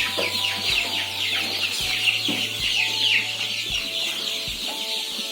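A flock of young chickens peeping continuously in a coop: many short, high, falling cheeps overlapping one another.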